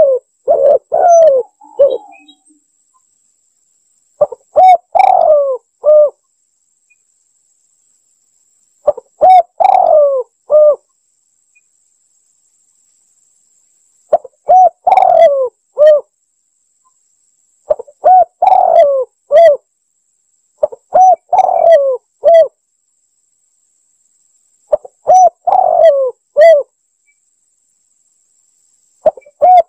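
Spotted dove cooing: about seven short phrases of several low, pitched coos each, repeated every few seconds with silent gaps between them.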